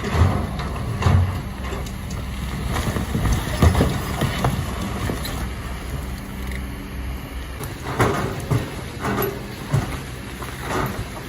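Excavator diesel engine running steadily under load, with repeated knocks and clatters of rock and metal from the digging, heaviest about a second in, near four seconds, and again from about eight seconds on.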